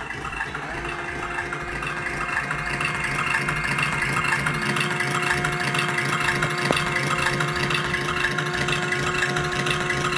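Mattel Ultimate Batmobile R/C toy's built-in engine sound effect, set off along with its smoke effect: a steady idling engine rumble with a steady hum joining in under a second in. It grows louder over the first few seconds and then holds.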